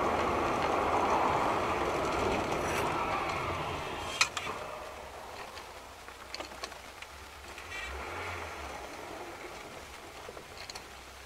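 Steady road and wind noise inside a moving car, picked up by a dashcam, easing off after about four seconds. A single sharp knock comes about four seconds in, with a few faint clicks later.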